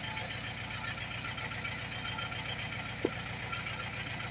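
Tractor engine running steadily at a low, even drone, with a short high-pitched sound about three seconds in.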